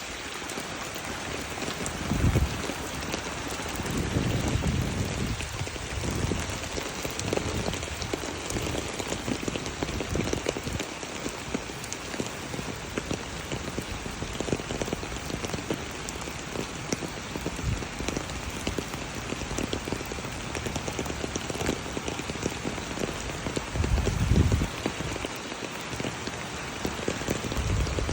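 Steady rush of floodwater running down the street and pouring into an overwhelmed storm drain, mixed with falling rain. A few short low rumbles stand out about two seconds in, around four to five seconds, and near the end.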